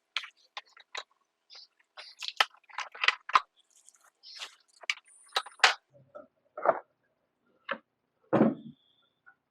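Scattered clicks, scrapes and knocks of hand tools and parts being handled while a motorcycle is taken apart to remove its fuel tank, with a brief high squeak about halfway and a heavier, deeper thud near the end.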